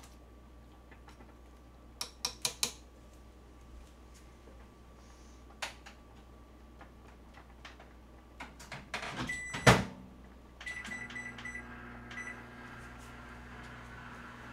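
Microwave oven that had cut out by itself being started again: a few quick clicks, then the door shut with a thump near the middle, a string of short keypad beeps, and the oven's steady hum starting up.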